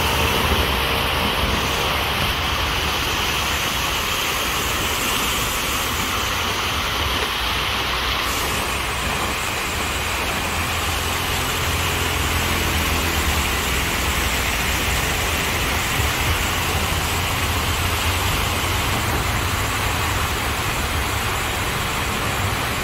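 Fountain jets spraying and splashing down into their pool: a steady rush of falling water over a low rumble.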